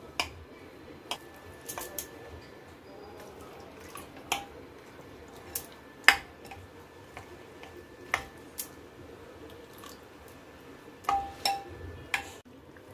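Steel spoon stirring damp semolina in a glass bowl, clinking against the glass about a dozen times at irregular intervals, each clink ringing briefly.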